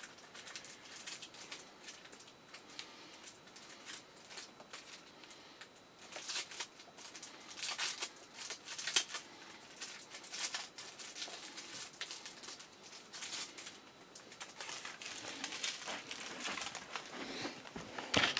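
Plastic packaging crinkling and rustling as a compressed mattress is handled and unfolded, in irregular bursts that grow louder about a third of the way in.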